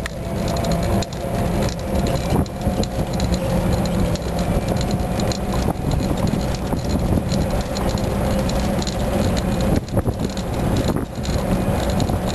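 A small open-sided vehicle running along a paved road, heard from on board: a steady low rumble with rattling from the vehicle and a faint steady whine.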